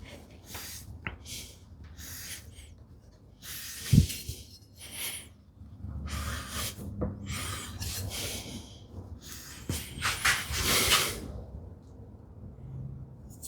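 The iron of a No. 5 hand plane being sharpened: irregular rasping strokes of the blade across an abrasive, with a sharp knock about four seconds in.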